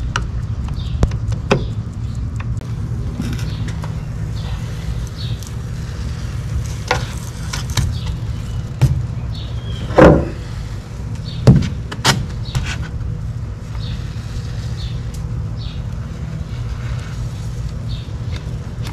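A wooden stir stick knocks and scrapes in a plastic cup while two-part flotation foam is mixed and poured, with scattered handling clicks and two louder thumps near the middle, over a steady low rumble.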